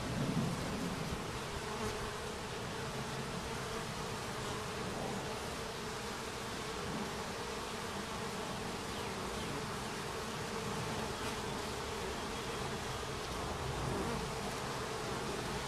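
Many honeybees buzzing in flight around the entrance of their hive, a steady hum of wings, a little louder in the first second.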